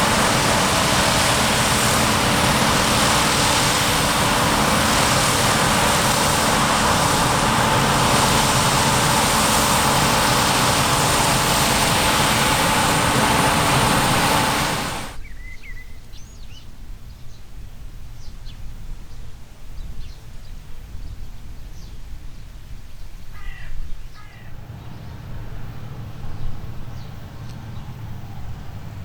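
Heavy farm harvest machinery running close by: a loud, steady engine noise with a few held whining tones. It cuts off abruptly about halfway, leaving quiet field ambience with a few short bird calls, then a low distant engine hum near the end.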